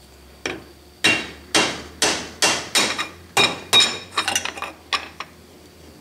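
A mallet with a yellow head striking the end of an electric motor's rotor shaft about a dozen times, roughly two blows a second, with a quick flurry of lighter taps near the end. Each blow is a sharp knock with a short ring, driving the shaft and its ball bearing out of the end bell.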